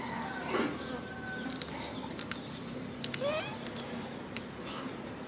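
Baby macaque giving a short rising cry about three seconds in, among light crackles from a plastic snack wrapper being handled.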